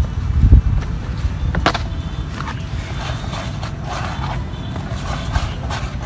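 Hands pouring and mixing powdered fishing bait in a plastic bowl: plastic-packet rustling and scraping, with a thump about half a second in and a click a little later, over a steady low rumble.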